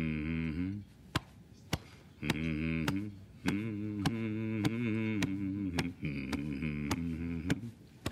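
A man's low, wordless humming chant in phrases that rise and fall, with short gaps, over steady fist-thumps on the chest, nearly two a second.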